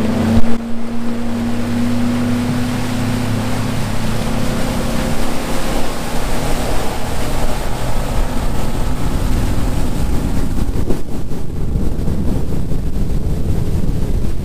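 Charger 210 Elite bass boat's outboard motor opened up from idle for a hole shot, its engine note climbing and then holding steady as the fully loaded hull comes up onto plane. There is a sharp knock about half a second in, and rushing water and wind on the microphone grow as speed builds until they drown out the engine.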